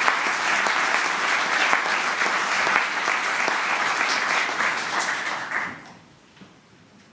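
Audience applauding, a dense clatter of many hands clapping that dies away quickly near the end.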